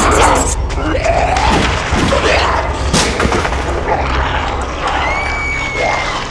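Loud film sound effects of a monster attack: booms and sharp impacts, one sharp shot-like crack about three seconds in, and gliding cries, over a steady low rumble.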